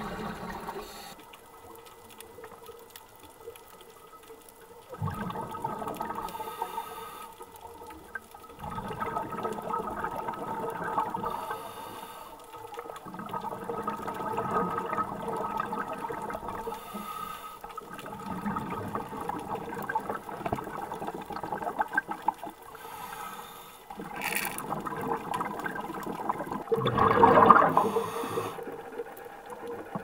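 Underwater sound in the sea: bubbling, gurgling water that swells and fades every few seconds, loudest near the end, with one sharp click shortly before that last swell.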